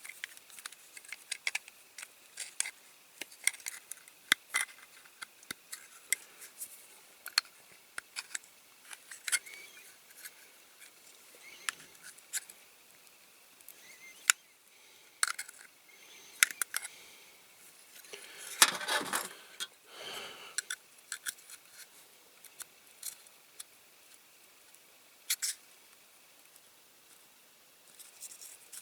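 Irregular small clicks, taps and light scrapes of a hand tool working a diecast toy's plastic front piece loose from its metal cab, with a longer scrape about two-thirds of the way through.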